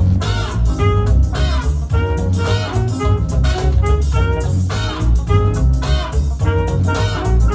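Music: a horn melody over bass and drums, jazzy and up-tempo.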